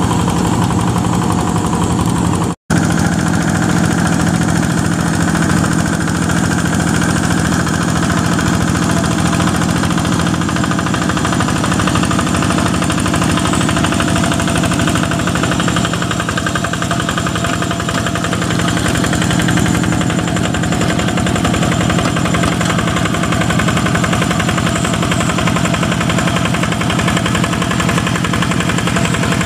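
Yanmar single-cylinder diesel engine of a two-wheel hand tractor running steadily with a fast chugging beat while pulling a moldboard plough through wet paddy mud. The sound breaks off for an instant about two and a half seconds in.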